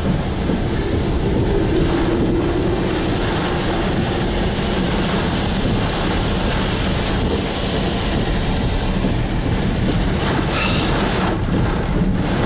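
Heavy wind-driven rain and strong storm wind buffeting a moving car, heard from inside the cab as a loud, steady noise.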